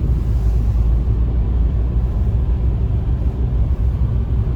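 Steady low rumble of a car driving at highway speed, engine and road noise heard from inside the cabin.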